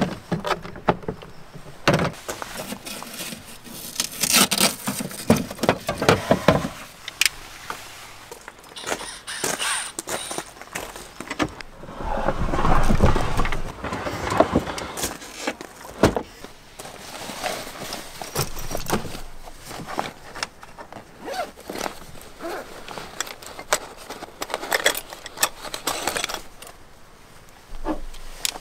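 A run of clicks, knocks and rattles from gear being handled on a pickup truck: a hard plastic storage case's lid is opened, a truck-bed drawer is slid out with a longer sliding noise about twelve seconds in, and metal tools clink.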